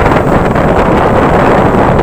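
Ocean waves washing in a loud, continuous rush of surf that holds steady with no break.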